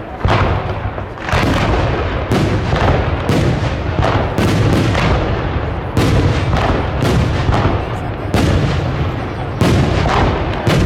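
Aerial fireworks shells bursting in quick succession, a loud bang about every half-second to second, each followed by a rolling, echoing rumble.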